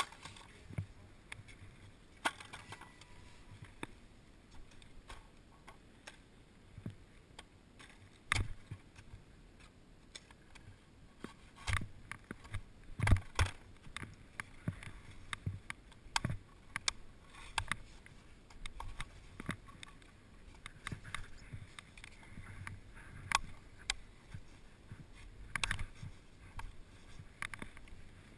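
Skis sliding over firm, hard-packed snow, with irregular sharp knocks and clicks from poles and gear; the loudest knock comes about 13 seconds in.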